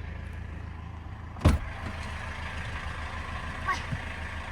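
GAZelle Next light truck's engine idling with a steady low rumble, and one sharp, loud thump about a second and a half in.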